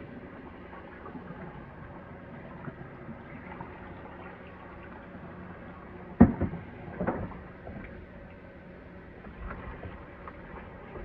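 Kitchen handling sounds: two sharp knocks, about six and seven seconds in, like utensils or containers being set down, over a faint steady hum.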